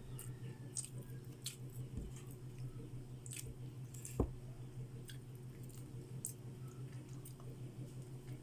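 Close-miked chewing and eating: wet smacks and mouth clicks scattered irregularly over a steady low hum, with a single knock about four seconds in.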